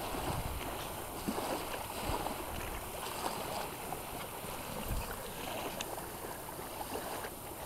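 Steady rushing of wind buffeting the microphone, with scattered faint soft thumps.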